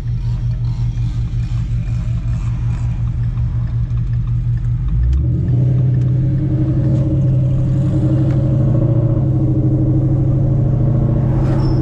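Ford Mustang GT's 5.0 Coyote V8 with long-tube headers, an X-pipe and a muffler delete, heard from inside the cabin: a steady low exhaust rumble that grows louder and a little higher in pitch about five seconds in.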